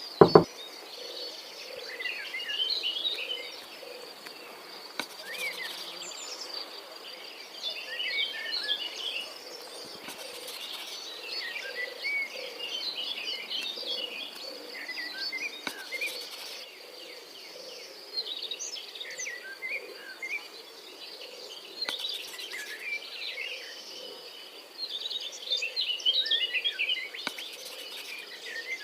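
Birds chirping in short bursts every few seconds over a steady, high insect drone, with a few faint clicks.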